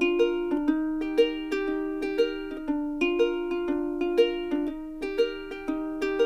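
Background music: a light melody of plucked notes over a held low note, with a steady beat.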